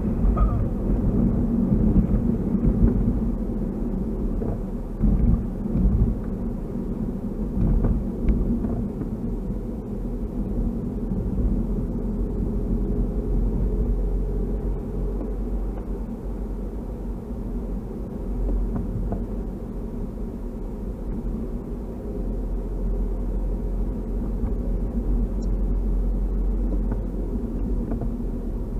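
Steady low rumble of a car driving, engine and tyre noise heard from inside the cabin through the dash cam's microphone, with a few brief thumps about five to eight seconds in.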